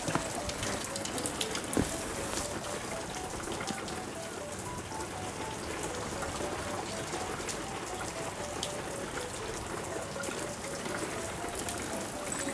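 Water dripping and trickling onto wet pavement, with many small drip clicks over a steady wash. A light background tune of short single notes plays over it.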